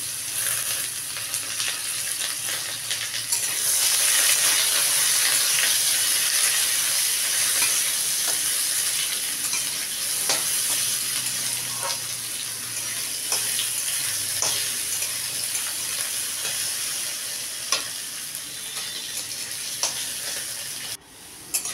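Cubed potatoes frying in hot oil in a steel kadai, sizzling steadily, with a metal spatula scraping and knocking against the pan now and then as they are stirred.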